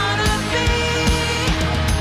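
Rock music with a steady drum beat, about two hits a second.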